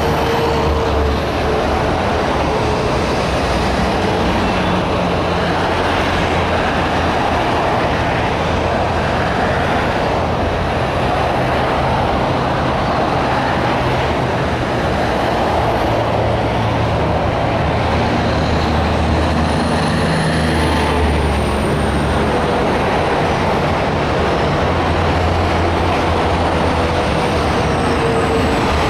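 Continuous freeway traffic noise from many cars and trucks passing at speed, steady throughout. A faint high whine is heard briefly about two-thirds of the way through.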